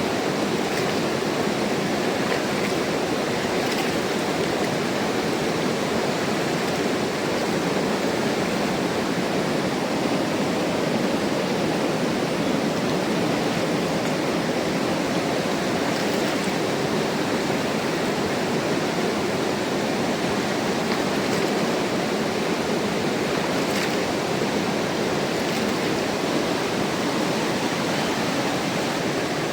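Mountain river rushing steadily, a constant full roar of flowing water.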